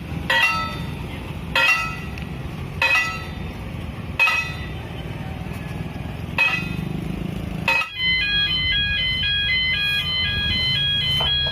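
Ringing chime-like strikes about every second and a quarter over a low rumble, then from about eight seconds a fast repeating electronic tune of stepped tones, like an alarm or jingle.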